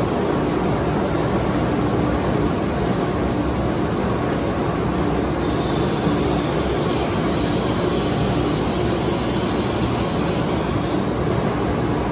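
Thermwood CS45 CNC router running under power, its 10 HP spindle head and gantry moving over the sheet on the table. It makes a loud, steady machine noise with a hum running through it.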